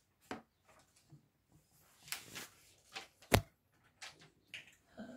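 Scattered faint taps and rustles of small objects being handled, with one sharp knock a little past three seconds in.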